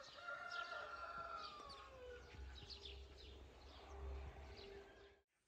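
Faint outdoor birdsong: small birds chirping in quick short notes again and again, with a longer call falling in pitch over about the first two seconds and a low distant hum in the middle.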